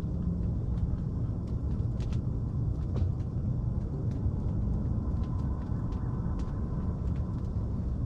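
A steady low rumble with faint scattered clicks and ticks over it.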